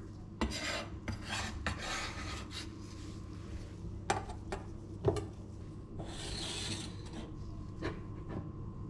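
Chef's knife scraping chopped parsley across a bamboo cutting board in several rasping strokes, then two sharp knocks and a brief hiss.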